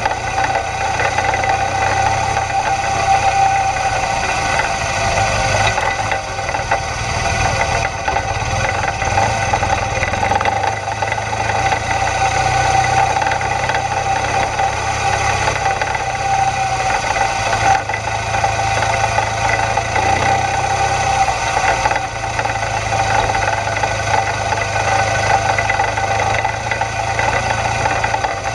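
BMW GS twin-cylinder adventure motorcycle engine running at a steady, moderate pace on a gravel track, over an even rushing noise.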